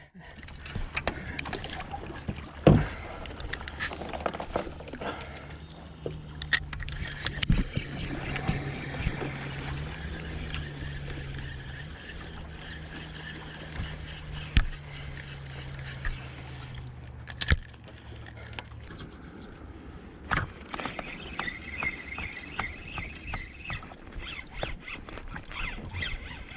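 Rod-and-reel handling noise from fishing in a kayak: scattered knocks and clicks over a steady low hum, which stops about two-thirds of the way through.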